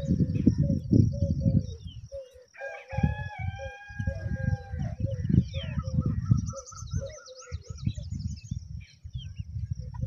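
A rooster crows once, a single long call of about two seconds starting about three seconds in, among many short high bird chirps. A loud low buffeting rumble runs under it, like wind on the microphone.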